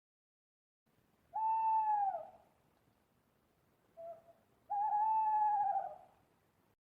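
An owl hooting: one long hoot, then a short soft note, then a long wavering hoot.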